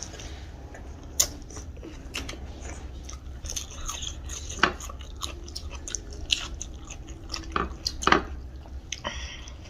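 Close-miked chewing of a meal of rice and fried pork, with wet mouth sounds and scattered sharp crunches. The loudest crunches come about a second in, midway, and near the end. A steady low hum runs underneath.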